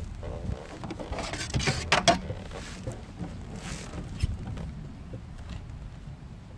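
A small fish being landed and handled in a fishing kayak: a cluster of short noisy splashing and rustling bursts about one to two seconds in, a weaker one a little later, and a single knock about four seconds in.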